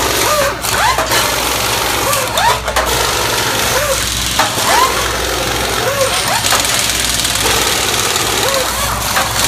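Short bursts of air tools whirring up and falling away, about one every second or two, over a steady hum and general background noise, as the crew tears down the Top Fuel engine.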